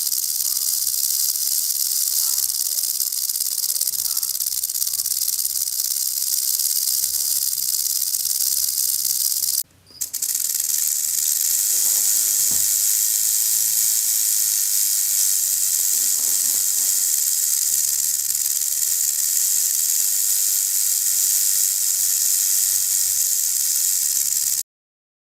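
Rattlesnake shaking its tail rattle in a continuous high, hissing buzz, the warning it gives when it feels threatened. The buzz breaks off for a moment about ten seconds in, comes back slightly louder, and stops abruptly near the end.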